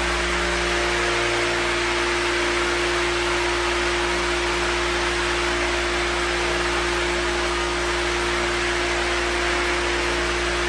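Square-pad orbital floor sander running steadily as it is pushed across a wood floor: an even hiss of sanding over the motor's steady humming note, with no breaks.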